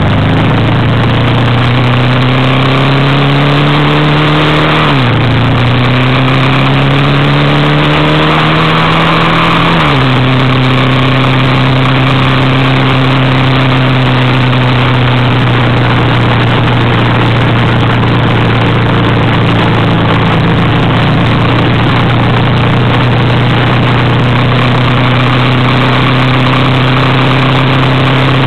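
Vehicle engine under way, pitch climbing as it accelerates and dropping at two gear changes about five and ten seconds in, then holding a steady cruise, under a loud steady rush of noise.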